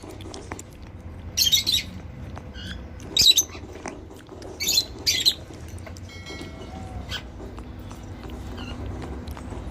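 Pet parrot giving short, harsh, high-pitched chirps in three brief bursts a second or two apart, over a low steady hum.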